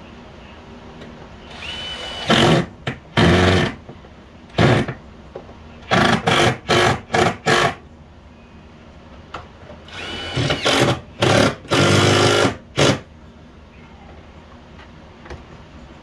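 Cordless power driver run in a dozen or so short trigger bursts, in two groups, driving screws up in the wall cabinet while an over-the-range microwave is mounted beneath it.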